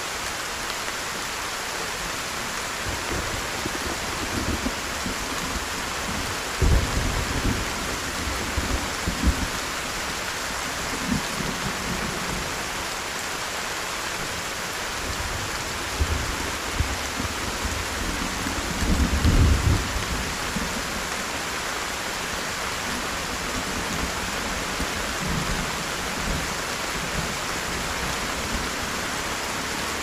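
Heavy rain falling steadily. Low rumbles of thunder swell twice, about seven seconds in and more strongly near twenty seconds.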